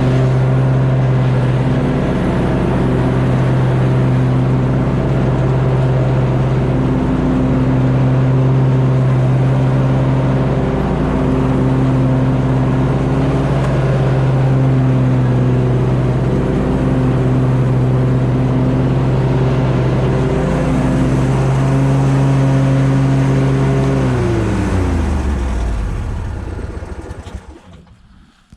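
2020 Simplicity Courier zero-turn mower's engine running steadily while mowing, its pitch dipping slightly now and then. Near the end the engine slows down and shuts off.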